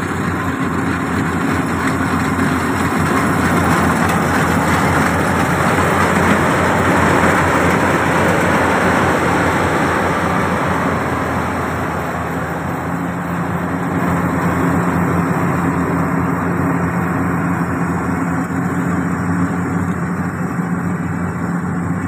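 Yanmar YH700 rice combine harvester working in the field: its diesel engine runs steadily under the rushing noise of the cutting and threshing machinery and crawler tracks. The machinery noise grows louder over the first several seconds and eases after the middle.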